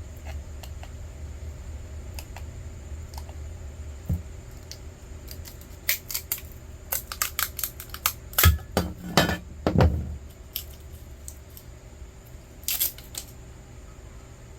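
Small pieces of scrap metal being handled: clinking and clattering knocks, with a dense flurry about halfway through and a brief clatter near the end.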